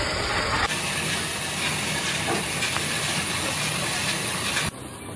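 Steady loud hiss of a tile kiln firing. It cuts off abruptly near the end, leaving a quieter steady background noise.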